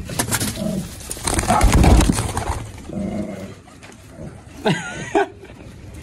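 Domestic pigeons cooing in a coop. There is a low rumble about two seconds in and a few short higher calls near the end.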